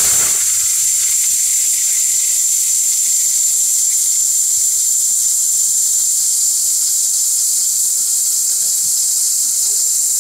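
Lords Xtra Hotel King commercial blender running at a steady speed, grinding turmeric pieces to powder in its small stainless steel jar: a steady, high-pitched whine over a loud hiss.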